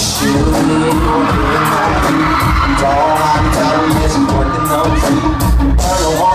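Live R&B concert heard from within the audience: a male singer singing into a microphone over a loud band, with heavy bass-drum thumps.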